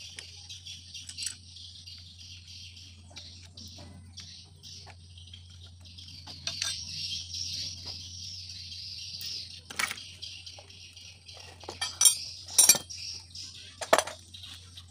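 Metal hand tools clinking against motorcycle clutch parts, with a few sharp metal taps in the second half, the loudest two close together, over a steady high buzz and a low hum.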